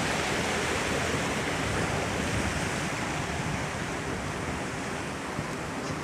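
Shallow rocky river flowing over stones: a steady rush of moving water, easing slightly toward the end.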